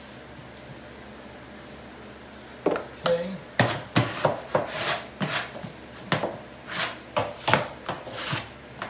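Wallpaper being swiped and smoothed against the wall by hand: after a few seconds of quiet room tone, a quick series of rubbing strokes, about two a second.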